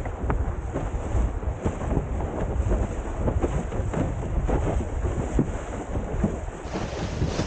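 Wind buffeting the microphone in a steady low rumble, with water rushing and frequent short slaps of chop against the hull of a Windsurfer LT board sailing through the waves.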